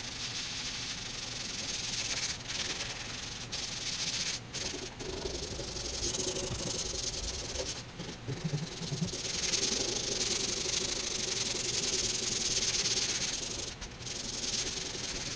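Sandpaper rubbed by hand over body filler on a van's sheet-metal roof: a steady scratchy hiss in long strokes, broken by a few short pauses.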